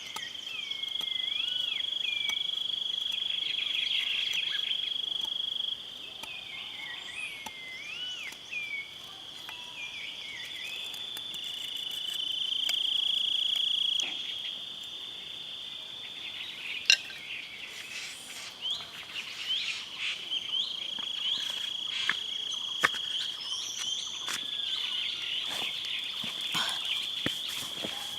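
Steady high-pitched insect drone of the forest, stepping louder and softer, with short up-and-down bird calls over it in the first half and scattered sharp clicks and snaps later on.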